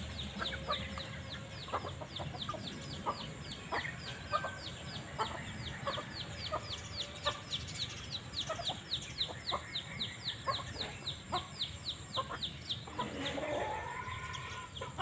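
A flock of young chickens feeding, one peeping in a fast, steady run of high falling notes, about four a second, over scattered short clucks. A longer rising-and-falling call comes near the end.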